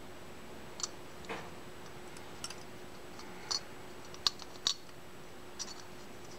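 Light metallic clicks and taps from a Tecumseh snowblower carburetor's float and its small hinge rod being handled and fitted into place. About seven small clicks come at irregular moments over a faint steady hum.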